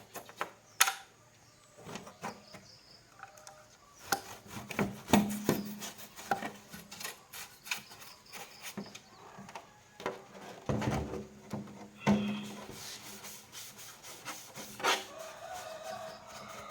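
Irregular clicks, taps and rubbing of things being handled and set down, with a few louder knocks about five seconds in and again about twelve seconds in.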